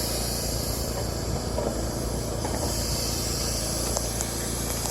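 Spray rig running steadily with the hiss of silicone roof coating being sprayed onto a metal roof.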